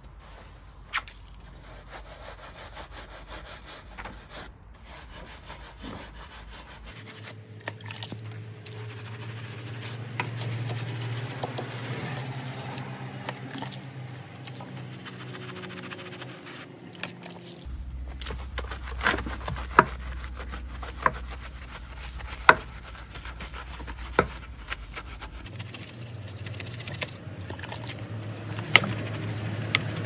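Bristle wheel brush scrubbing a soapy alloy car wheel, a continuous wet rubbing and scraping, with a few sharp knocks of the brush against the rim in the second half.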